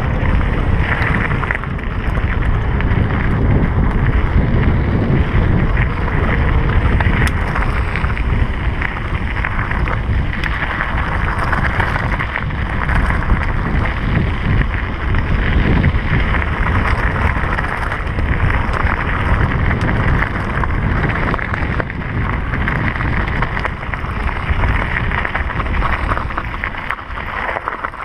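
Mountain bike rolling fast downhill over a loose gravel road: steady wind buffeting the microphone, with the tyres crunching on the gravel and the bike rattling in a constant stream of small clicks.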